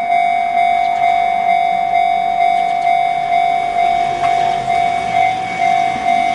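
Japanese level crossing's electronic warning bell in the Chichibu-type tone, ringing steadily at about two dings a second.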